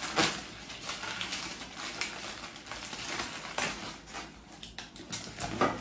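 Plastic wrapper crinkling and rustling as it is torn open by hand, with irregular crackles throughout.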